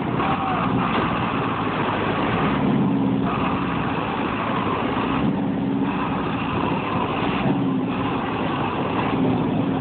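Diesel farm tractor engine working hard under load, straining to pull a trailer stuck in wet sand and blowing black smoke; the engine note shifts up and down a few times as the throttle changes.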